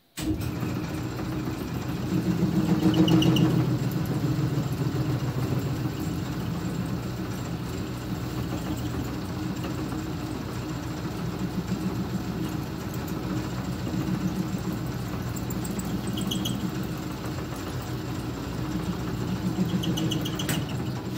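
Small metal lathe switched on and running steadily, its motor and drive humming as it turns a brass rod down in diameter. It starts abruptly and gets louder for a couple of seconds shortly after starting.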